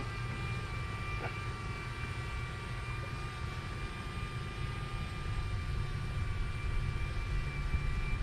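DJI Mini drone's propellers hovering overhead, giving a steady high whine over a constant low rumble.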